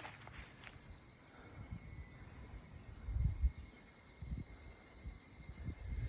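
Steady high-pitched insect drone in summer woodland, with a few dull footsteps on the trail about three seconds in.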